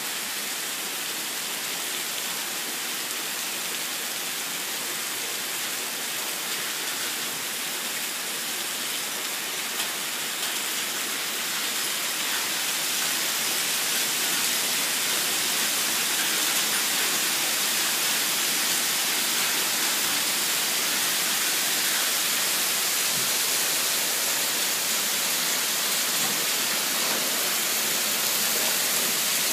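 A storm's heavy rain and hail pouring down, a steady dense hiss that grows louder about twelve seconds in.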